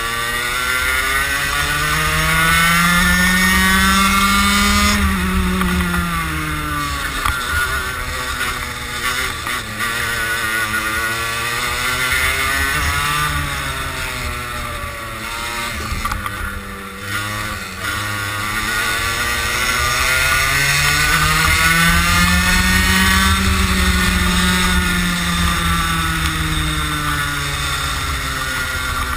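Racing kart engine heard onboard, its revs climbing as the kart accelerates and dropping away as it slows for corners. The pitch rises to a peak about four seconds in, falls, rises a little around thirteen seconds, and climbs again to a second peak about twenty-three seconds in before falling.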